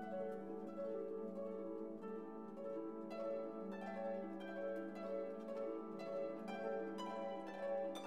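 Instrumental background music: sustained pitched tones with plucked notes entering about three seconds in and growing busier toward the end.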